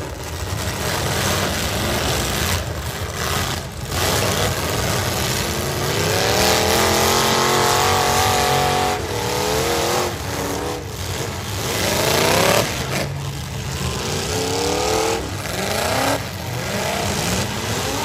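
Demolition-derby V8 truck engines revving hard over a dense noisy din. The pitch climbs and falls in several runs, the longest about six seconds in.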